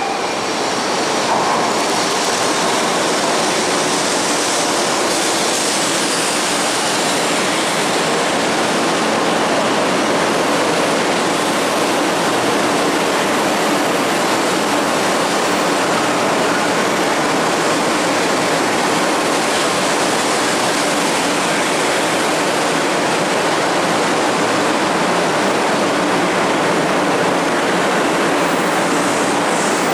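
500 Series Shinkansen pulling in along the platform: a steady, loud rushing of wheels and air that holds at one level throughout.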